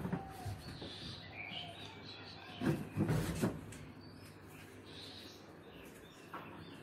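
Faint bird chirps from outside, short high calls, with a few louder knocks and thumps about three seconds in.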